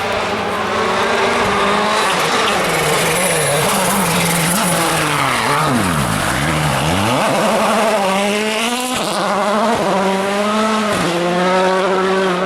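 A World Rally Car's 1.6-litre turbocharged four-cylinder engine driven hard on the stage. The revs dip and come back up around the middle, then the car accelerates away with the pitch climbing and breaking at each of several gear changes.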